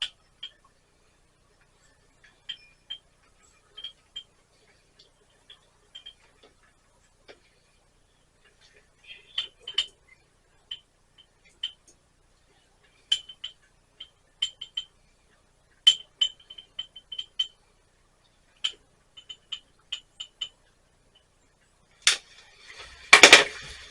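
Light, sharp clicks at irregular intervals, some in quick runs of three or four, then a louder clatter near the end.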